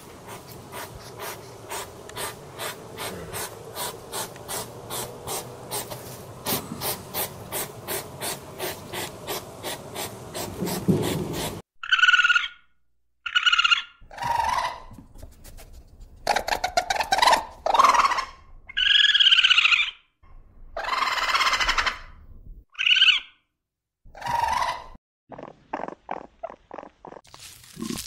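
A hedgehog sniffing and snuffling, with short sniffs about three a second. About twelve seconds in, a raccoon takes over with a series of short, high squealing calls, some rising and falling in pitch, with pauses between them.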